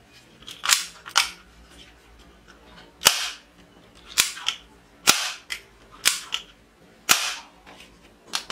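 Plastic toy revolver's trigger being pulled over and over: about eight sharp clicks, roughly one a second, each with a short snap.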